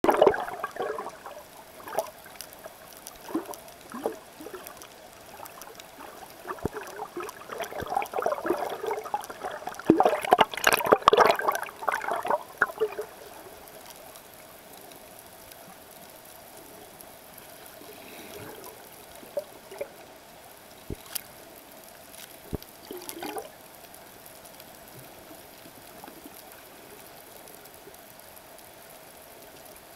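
Splashing and bubbling of snorkelers kicking at the surface, heard from underwater, in dense bursts for the first dozen seconds and loudest about ten seconds in. After that it settles to a faint steady underwater hiss, with a few sharp clicks a little past the twenty-second mark.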